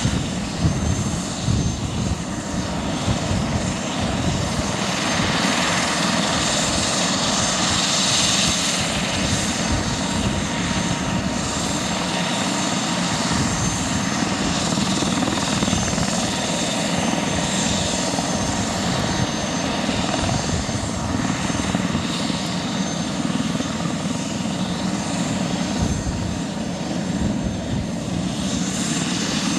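Airbus H145's twin Safran Arriel 2E turboshaft engines running on the ground during an engine wash: a steady turbine whine with a constant high tone over a broad rumble.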